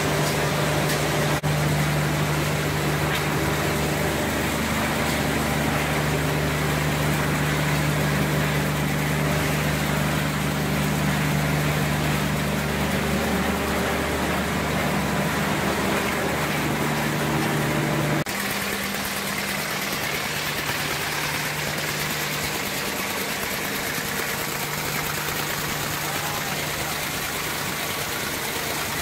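Tinplate can-making machinery, a printed-sheet feeder and can body welding line, running with a steady mechanical hum and whir. About eighteen seconds in, the sound drops slightly and the low drone changes.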